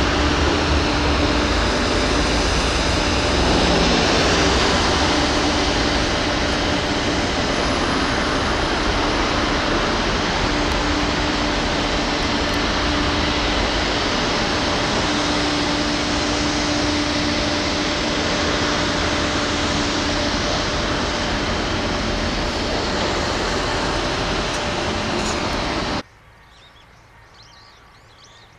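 Steady rushing background noise with a low, steady hum running through it. It drops away abruptly near the end.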